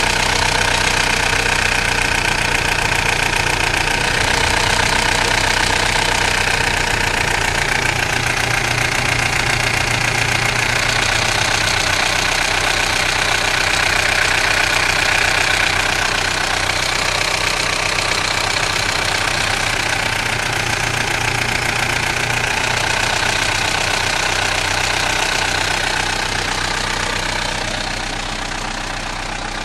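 Mitsubishi Pajero's 2.8-litre 4M40 turbo-diesel idling hot, with a rattle from the engine that the owner suspects is the timing chain. The sound gets a little quieter near the end.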